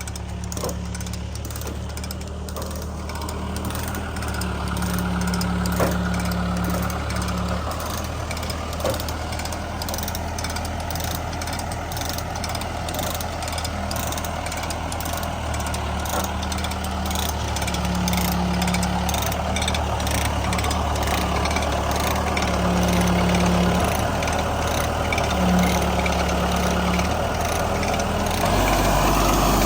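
Heavy machine engine running steadily, its note shifting every few seconds as load comes on and off, with a couple of faint knocks.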